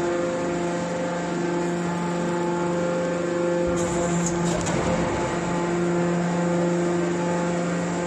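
Hydraulic scrap metal baler running: a steady hum from its motor-driven hydraulic pump as the ram pushes a compressed bale of metal chips out of the chamber, with a brief burst of extra noise about four seconds in.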